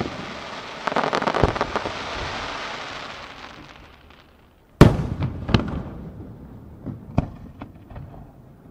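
Aerial fireworks: the dense crackling of a glittering shell's stars, fading out after about four seconds, then a second shell bursting with a sharp bang about five seconds in, followed by a few smaller cracks and a fading rumble.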